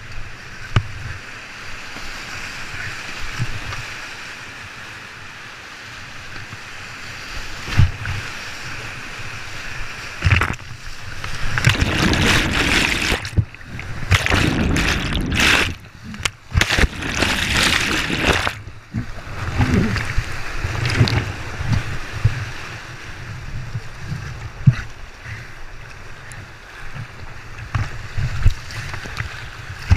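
Whitewater rapids rushing around a kayak, with low thumps on the kayak-mounted camera. From about ten seconds in, the kayak crashes through a wave and water pours over the camera for several seconds: loud churning and splashing with short drop-outs. After that the steadier rush of the rapids returns.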